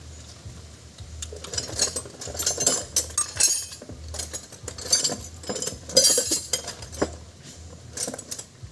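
Steel hand tools clinking and scraping irregularly against the rocker arms and adjusters of a Nissan A12 engine's exposed valvetrain, loudest about five and six seconds in, over a steady low hum.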